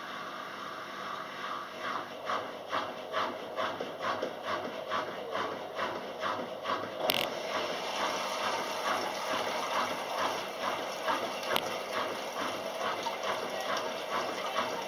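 Kelvinator K605 washing machine running through its regular cycle, with a fast, regular mechanical pulsing of about three beats a second that sets in shortly after the start. A single sharp click sounds about seven seconds in.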